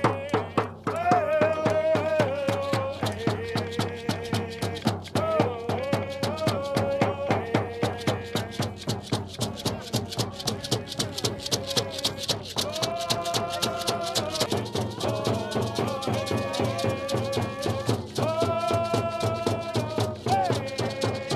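A group singing a hand game song over a fast, even beat of hand drums. The song is sung to throw the guessing team off.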